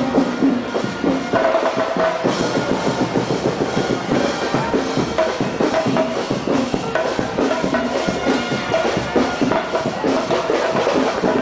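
Parade drums, snare and bass drum, playing a rapid, continuous beat.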